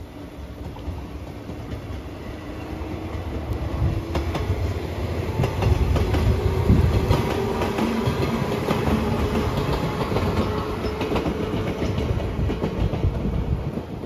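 A yellow JR West 115-series electric train passing close by: a rumble and humming drive tone growing louder as it approaches, then wheels clicking over the rail joints as the cars go past.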